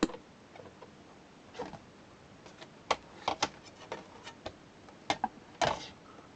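Scattered clicks and knocks from handling a Fidelity HF42 portable record player between records: a sharp click at the start, then a cluster of small clicks in the middle and a slightly longer knock near the end.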